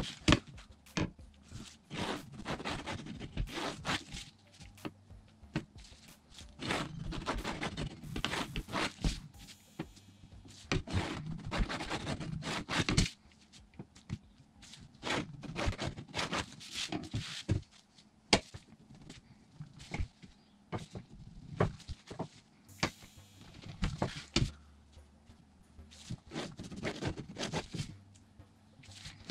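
A long aluminium ruler knocking and sliding on vinyl over a cutting mat, with a graphite pencil scraping along its edge as lines are drawn: irregular knocks, clicks and scrapes.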